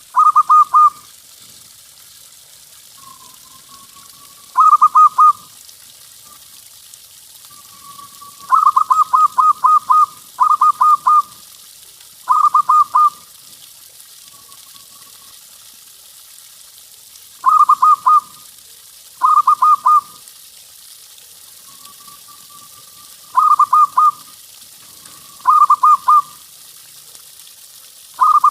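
Zebra dove (perkutut) cooing in full song: about nine short phrases of rapid, stuttering coos, a few seconds apart, with soft drawn-out single coos between some of them.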